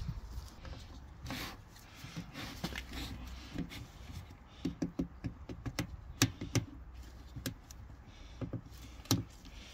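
Hard plastic clicking and knocking as a coolant pipe fitting is worked into the plastic end tank of a new Valeo radiator for a BMW E38, with a few sharper clicks near the end as it seats.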